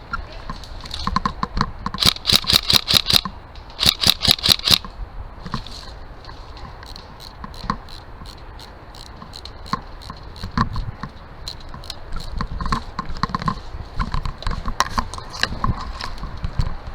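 Airsoft gun firing two quick strings of shots, about 2 and 4 seconds in, followed by scattered single shots and clicks over a low rumble.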